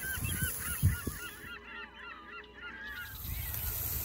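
A flock of birds calling: many short calls overlapping, each rising and falling in pitch, thinning out after about three seconds.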